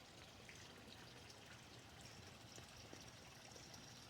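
Near silence: faint steady background hiss, with a thin, faint high-pitched tone coming in about halfway through.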